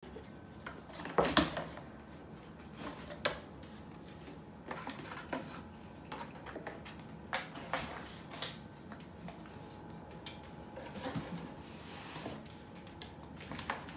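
Cardboard box knocked and scraped by a cat playing inside it: scattered taps, scratches and rustles against the cardboard, the loudest about a second in.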